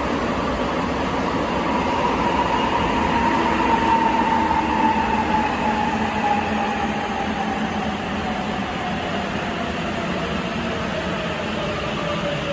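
Sapporo Municipal Subway 8000-series rubber-tyred train running through the tunnel, heard from inside the car: a steady rumble of running noise under the inverter and traction-motor whine, which slowly falls in pitch as the train slows.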